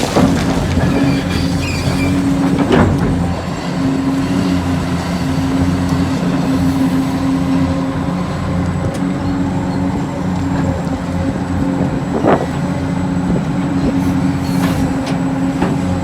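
Radio-controlled scale construction machine running steadily with a constant mechanical hum from its electric motor and hydraulic pump, with a sharp knock about three seconds in and another near twelve seconds.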